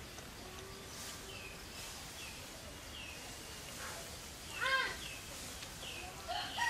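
Chickens calling: a run of short falling peeps, one about every half second, with one louder hen's call about two-thirds of the way in.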